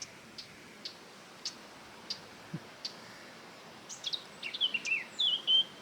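Wild birds singing: several short, high chirps spaced about half a second apart, then a quick run of warbling, falling notes near the end, over a faint outdoor hiss.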